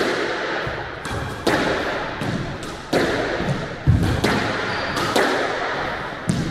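Squash rally: the ball cracks off rackets and the court walls about six times, roughly once every second and a bit, each hit echoing in the enclosed court.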